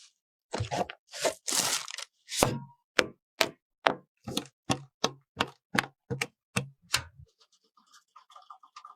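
A few short swishes, then a run of sharp clicks and knocks, about two a second, some with a dull low thud under them, ending about seven seconds in; faint light ticking follows.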